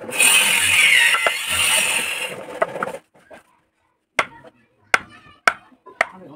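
A loud rushing noise with a faint falling tone for about three seconds, then four sharp taps about half a second apart: a wood-carving chisel being struck as it is set in around a drawn circle on a flat wooden board.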